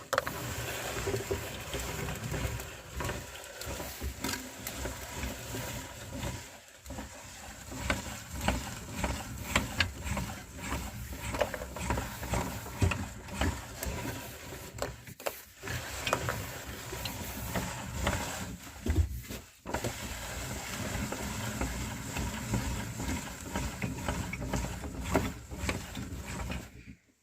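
Meat grinder running and crushing chocolate-filled cookies: a steady machine hum with constant small cracks and clicks of the cookies breaking. It cuts off abruptly just before the end.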